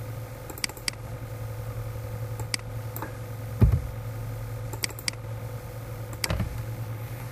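Scattered computer keyboard keystrokes, single clicks a second or so apart, with one heavier dull thump about halfway, over a steady low hum.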